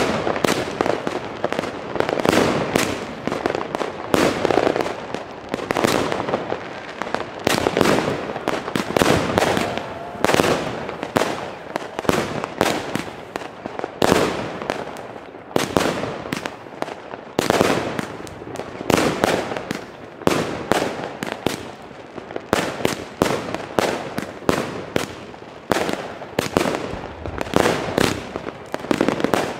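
Consumer firework cake (multi-shot battery) firing shot after shot, its shells bursting overhead in a rapid, unbroken string of bangs several a second, with crackling between them.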